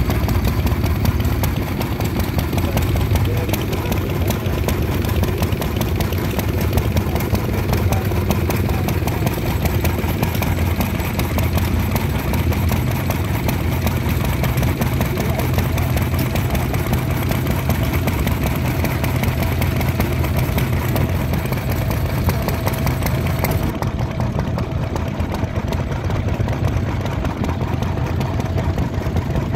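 Bamfords single-cylinder stationary engine running steadily.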